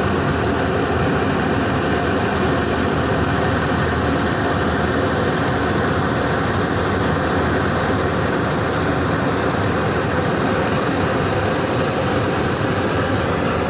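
N S Agro mini combine harvester's engine and machinery running steadily at an even, unchanging level.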